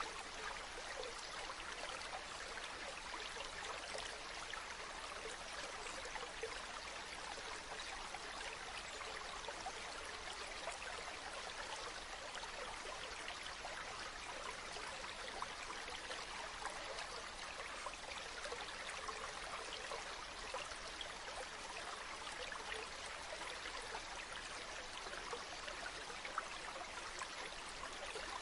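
Water flowing and trickling steadily, a stream babbling with small splashes.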